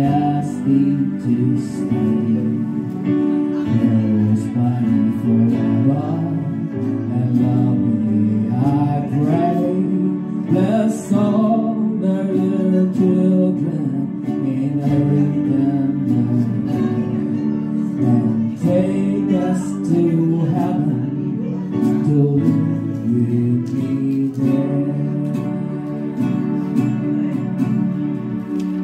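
Music: an acoustic guitar strummed steadily through an instrumental passage of a Christmas worship song.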